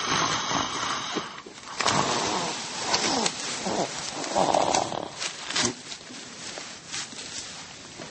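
A person snoring loudly and irregularly, with snorts and uneven breaths rather than a steady rhythm.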